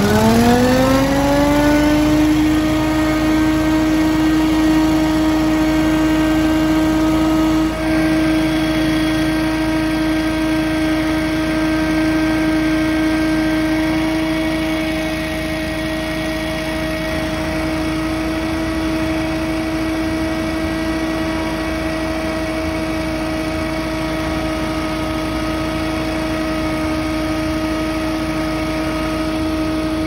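SCAG Windstorm stand-on leaf blower, its 37-horsepower engine and fan speeding up with a rising whine in the first two seconds, then running steadily at full speed while blowing off a driveway.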